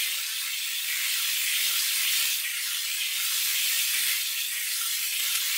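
Several motorised Lego trains running at full speed on plastic track: a steady, high-pitched hiss-like rattle of wheels and motors that swells a little at times.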